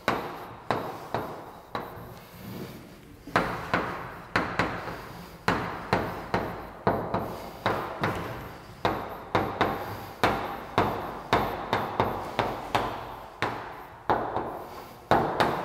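Chalk tapping and scratching on a blackboard as an equation is written out: an irregular run of sharp taps, roughly two or three a second, each dying away quickly.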